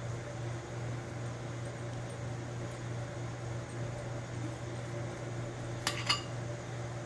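A metal spoon clinks twice in quick succession against the bowl of chilli-butter paste, about six seconds in, over a steady low background hum.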